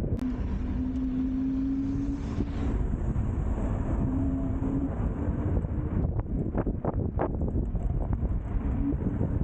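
Wind buffeting the microphone while riding a WEPED electric scooter, a steady low rumble, with a thin steady hum from the ride that drifts slightly in pitch. A few sharp knocks come about two thirds of the way in.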